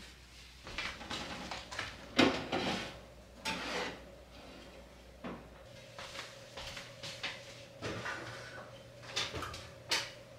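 Scattered light knocks and clatter of metal loaf pans and a cloth towel being handled in a kitchen, with a sharper clack near the end at the oven.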